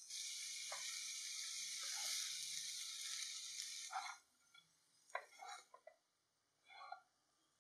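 Rice sizzling as it fries in a pan, a steady hiss that cuts off suddenly about four seconds in. Then a few short scraping and rustling bursts, in two groups, as a spatula stirs and tosses the rice.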